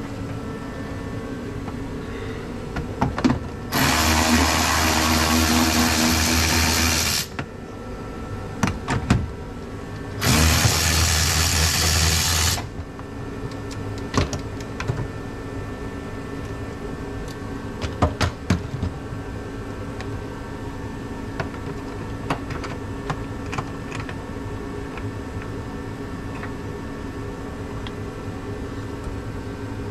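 A cordless power tool runs twice, once for about three and a half seconds and then for about two seconds, turning out the 10 mm bolts that hold the trim panels. Tools clink and rattle in between, over a steady background hum.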